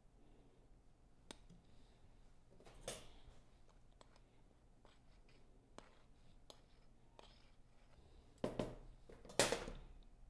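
A spoon scooping cheese powder, clicking and scraping against a cup and container. There are a few light clicks, then two louder clatters near the end.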